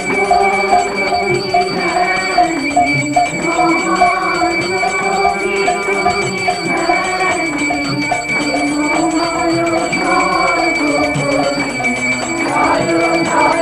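Traditional devotional music: a harmonium playing a sustained melody, with a quick, steady rhythmic pattern from hand percussion.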